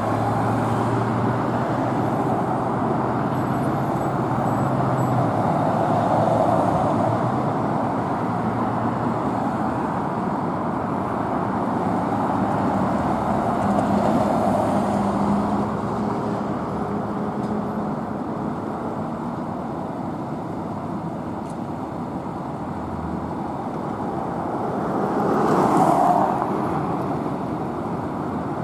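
Road traffic: a steady wash of vehicles passing, with one passing louder near the end.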